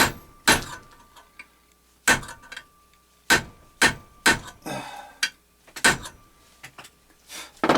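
Light metal-on-metal taps, about eight irregular sharp strikes a second or so apart, of a small hammer tapping on a seized screw to break it loose.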